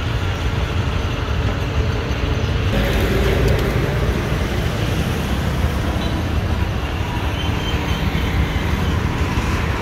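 Steady street traffic noise, a low rumble that swells slightly about three seconds in.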